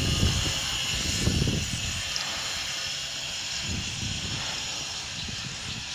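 Outdoor ambience: a low, uneven rumble, strongest in the first two seconds, under a steady high hiss.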